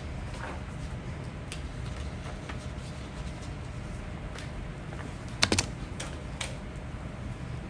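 A hiccup: a sharp double click about five and a half seconds in, with a few fainter clicks after it, over a steady low hum.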